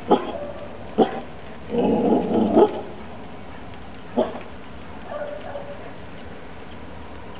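Seven-month-old Rottweiler–Bull Mastiff cross puppy barking: two sharp barks, a longer burst of barking about two seconds in, then one more bark about four seconds in.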